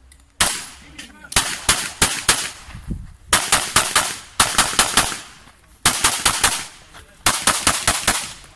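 Gunshots from a 9 mm Glock 17 in a Hera Arms Triarii carbine chassis, fired fast in strings of two to five shots with short pauses between strings.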